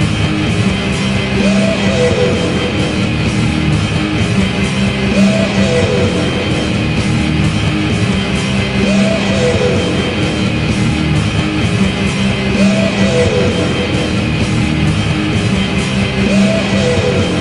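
An NHL team's rock goal song playing loudly, guitar-driven, with a sliding phrase that repeats about every three and a half to four seconds.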